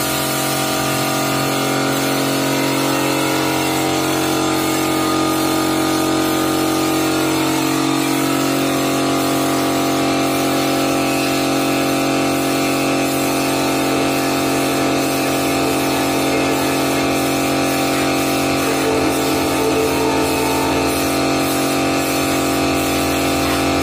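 Portable electric air compressor running with a steady hum, under the hiss of a gravity-feed spray gun spraying paint.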